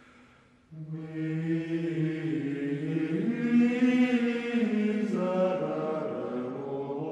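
Closing music of slow vocal chanting: long held notes that come in under a second in and move to new pitches every couple of seconds.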